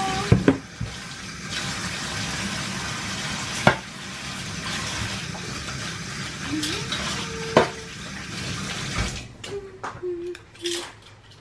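Water running from a kitchen tap, with clinks and knocks of dishes and utensils; the running water stops about nine seconds in, leaving a few light knocks.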